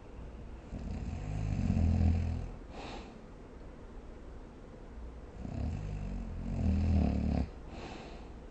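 A sleeping person snoring: two long, low, rattling snores about five seconds apart, each followed by a short breathy puff.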